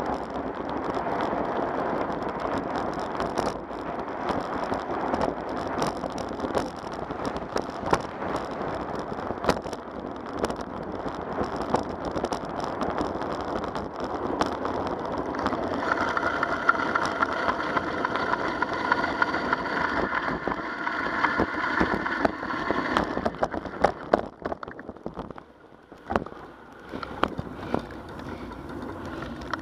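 Bicycle rolling along a cracked asphalt path: steady tyre and wind noise with sharp rattling clicks as the bike runs over cracks and bumps. A steady whine joins in past the middle for several seconds, and the noise drops briefly near the end.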